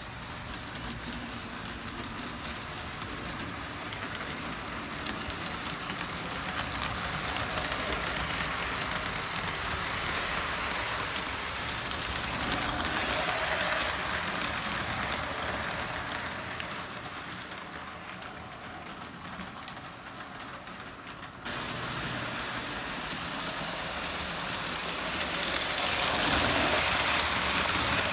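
Model train running on its track: the electric motor of the SW-type switcher, which has no sound unit, hums while the wheels roll over the rails. It grows louder as the train passes close by, twice, and the level jumps suddenly about three-quarters of the way through.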